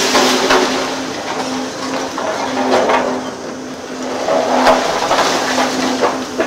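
Volvo EC750E high-reach demolition excavator running with a steady hum while its demolition shears crush and pull down brick masonry and steel beams. Brick and rubble crash down in several bursts, the biggest about four and a half seconds in with a sharp crack.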